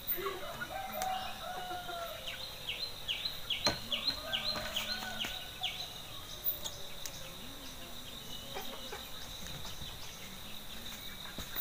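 Outdoor background of a steady high insect drone, with a bird calling a quick run of about ten short falling notes from about two to five seconds in. A single sharp click comes near the middle.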